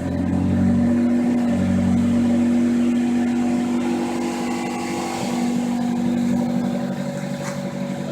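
Honda Civic's D16 four-cylinder engine running at a steady pitch.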